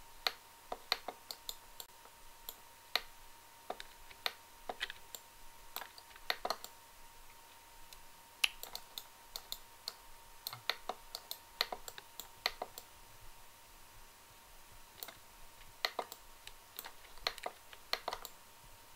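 Irregular clicks of a computer mouse and keyboard, single sharp clicks spaced a fraction of a second to a couple of seconds apart, over a faint steady tone.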